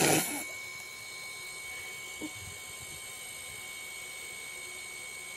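Room tone: a steady faint hum with a thin high whine running through it, after a brief rush of noise right at the start.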